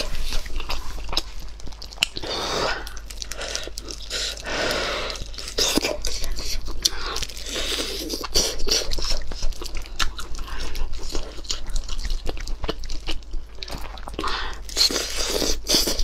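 Eating kiln-baked chicken: biting and chewing with many irregular wet mouth clicks, mixed with meat being torn from the bone by gloved hands.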